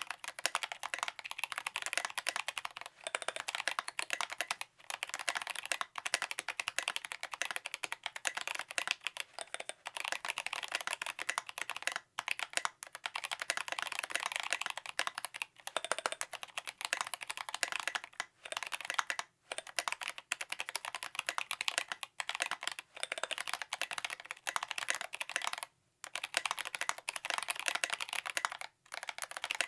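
Custom 60% mechanical keyboard with a brass plate, lubed 67g Zealios V2 tactile switches and SA profile keycaps, typed on fast and continuously, with a few short pauses between bursts.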